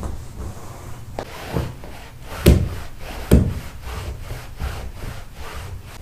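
Cloth being rubbed over fabric sofa upholstery in repeated back-and-forth strokes, with two heavier thumps about two and a half and three and a quarter seconds in.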